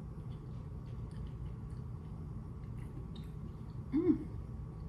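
Close-up chewing and mouth sounds of someone eating: faint scattered wet clicks over a steady low hum. About four seconds in there is one short hum-like note that rises and falls.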